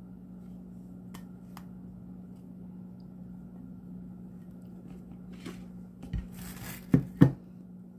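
Pancakes and plates being handled on a kitchen counter over a steady low hum: a few faint clicks, soft rustling handling sounds, then two sharp knocks close together near the end.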